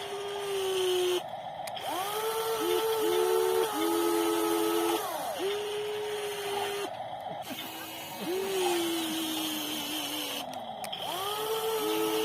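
Electric motors of a WLtoys 16800 metal RC excavator whining in short runs: each whine spins up, holds a steady pitch, then winds down, sometimes two motors running together at different pitches, with a few brief breaks.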